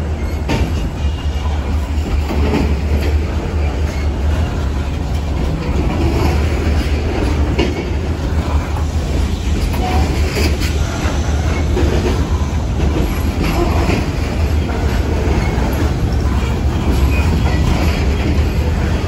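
Open-top hopper cars of a freight rock train rolling past close by: a steady low rumble, with the wheels knocking and clacking over the rail joints.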